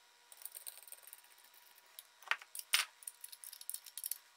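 Small metal parts clicking and clinking as a master cylinder is handled and tightened in its metal clamp, with two sharper knocks a little past halfway.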